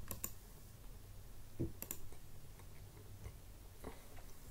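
Computer mouse button clicks while menus are navigated: one click near the start and two quick clicks a little under two seconds in, with a soft thump just before them. A steady low hum runs underneath.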